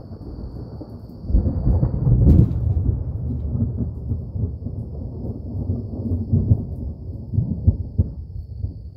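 Deep rolling thunder that builds sharply about a second in and rumbles on in uneven pulses for several seconds before easing near the end.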